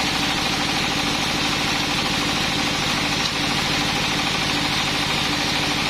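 Engine of a sawmill running steadily, with an even, rapid firing pulse.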